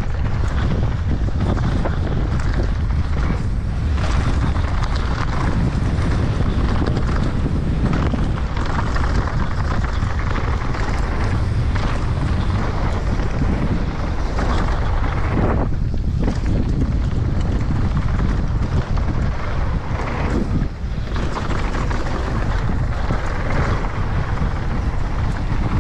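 Wind rushing over a GoPro action camera's microphone as a mountain bike descends a trail at speed, a steady loud roar with two short lulls in the second half.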